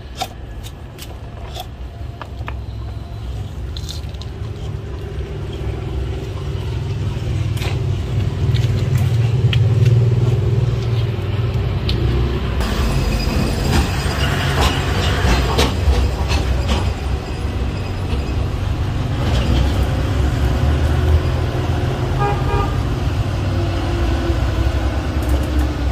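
A motor vehicle's engine running, a low rumble that builds over the first ten seconds and then holds steady, with a few short beeps near the end.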